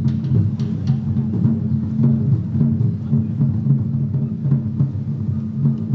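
Music with low sustained tones in a steady pulsing rhythm, and a few faint crackles over it.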